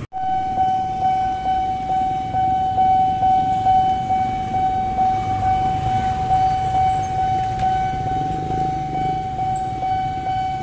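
Railway level-crossing warning alarm: a high electronic tone pulsing about twice a second, starting suddenly. Motorcycle traffic runs underneath.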